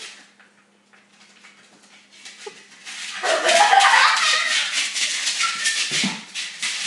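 Jack Russell terrier's claws scratching rapidly at a small mat on a tile floor, a dense scrabbling rattle that starts about two seconds in after a near-quiet stretch.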